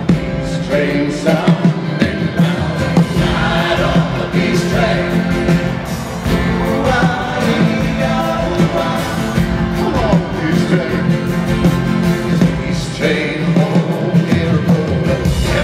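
A live rock band with acoustic guitars, piano and drums plays on while a gospel choir sings, heard from among a large arena audience.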